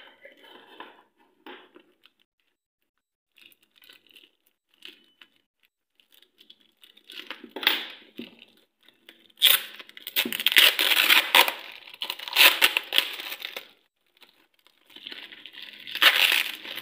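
Bubble wrap and plastic film being pulled and torn off a bottle by hand, crinkling and crackling. It is faint and sparse at first, then loud from about halfway through, in two long spells of tearing and rustling.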